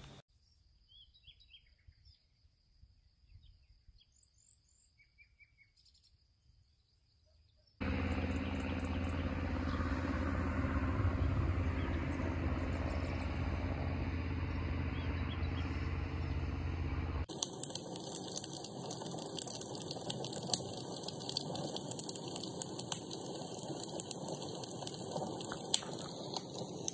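A few faint bird chirps over near silence, then from about eight seconds in a steady outdoor background noise with a low hum. From about seventeen seconds in, a wood fire crackles in a metal fire pit with many sharp pops.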